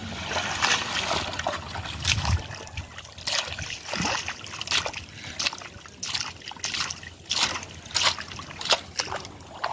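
Hands digging and scooping in shallow muddy water, a run of irregular splashes and sloshes.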